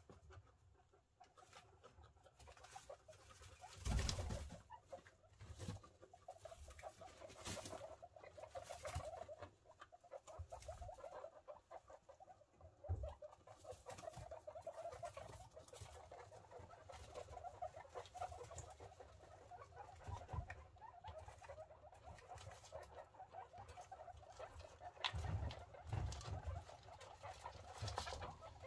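Guinea pigs, a mother and her newborn pups, rustling and pattering about in wood-shaving and hay bedding. There are a few louder knocks about four seconds in and again near the end.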